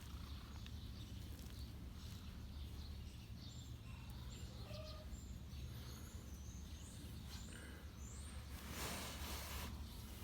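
Outdoor ambience: small birds chirping in short high notes, some gliding upward, over a steady low rumble, with a brief rustling burst near the end.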